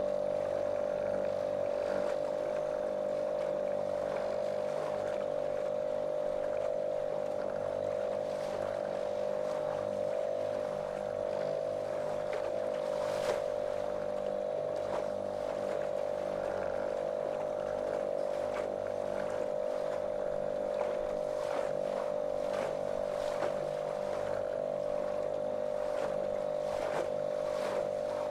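Small motorboat's outboard motor running at a steady, monotonous pitch under way. The hull slaps and splashes on the water now and then, most sharply about 13 seconds in.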